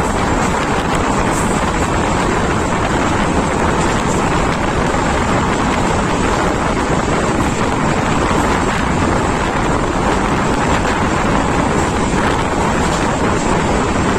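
Steady rush of wind on the microphone mixed with the running noise of an Indian Railways passenger train at speed, heard from the window of its coach.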